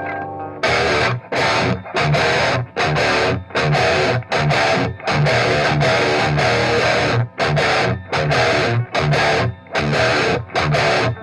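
High-gain distorted electric guitar from a Line 6 Helix amp modeller, played through an Electro-Voice 15-inch powered monitor, chugging out simple riffs in short phrases with brief stops between them. The riffing starts about half a second in, after a ringing chord dies away.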